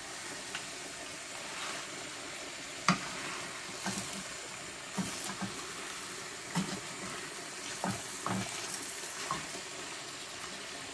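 Beef, tomatoes and vegetables sizzling steadily in a stainless steel pan while being stirred with a wooden spoon, with several short knocks of the spoon against the pan.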